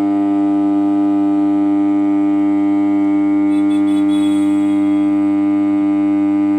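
Home theater amplifier speaker putting out a loud, steady mains hum, a buzzy drone with many evenly spaced overtones. It is the sign of a power-supply fault, a dry-soldered leg on the big filter capacitor, and not of the amplifier ICs.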